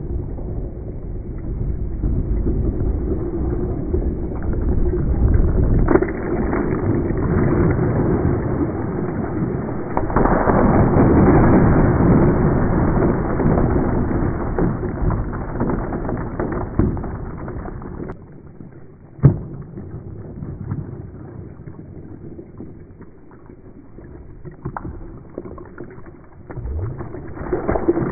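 Ice water pouring from a bucket over a man and splashing onto a wooden deck, loudest about 10 to 13 seconds in and dying away after about 18 seconds. A single sharp knock follows about a second later, and splashing starts again near the end as a second bucket is poured.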